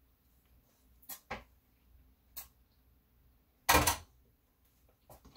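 Kitchen handling sounds while making a sandwich: a few light taps and clicks, then one louder short clatter about two-thirds of the way through, as of a table knife knocking against the counter or a dish.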